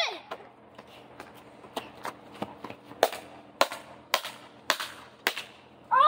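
Footsteps in flip-flops or slides, a run of sharp slaps at walking pace, about two a second.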